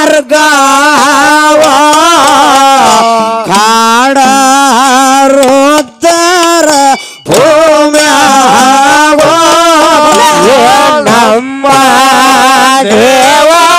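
A woman singing a Kannada dollina pada folk song into a microphone, loud and amplified, in long wavering held notes with a few short breaks for breath.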